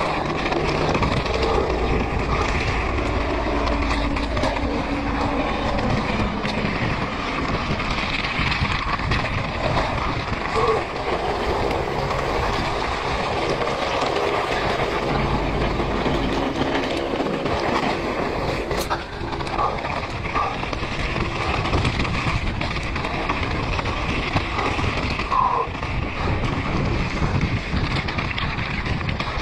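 Mountain bike rolling fast over a loose rocky scree trail: tyres crunching over stones and the bike rattling steadily with frequent small knocks, under a low rumble of wind on the microphone.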